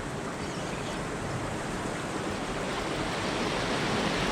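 Steady wash of sea surf, a constant rushing noise that grows slightly louder toward the end.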